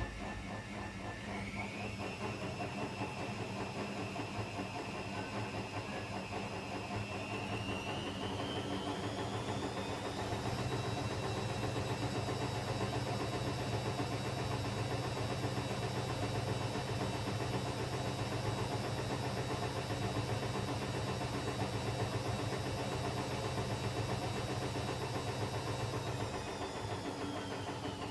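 Electrolux EWF10843 front-loading washing machine on its spin cycle: the drum motor's whine rises in pitch about a second and a half in, climbs again as the drum speeds up toward 800 rpm, holds steady with a strong low hum, then starts to fall near the end. This is the loud spin noise the owner is demonstrating as a fault.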